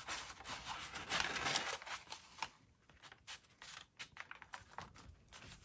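Paper and cardstock rustling and scraping as layered tags and cards are handled and slid into a paper clip, with small clicks. It is busiest for the first two seconds, then thins to a few faint ticks.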